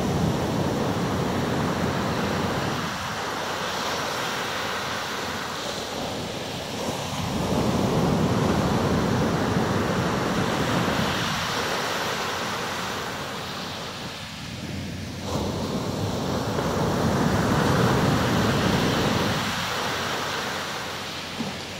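Ocean surf breaking and washing up a sandy beach, a steady rush that swells and fades about every seven or eight seconds as each wave comes in.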